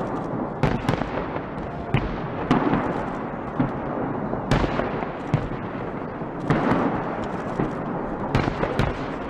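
Fireworks display: aerial shells bursting with sharp bangs about once a second, over a continuous crackle.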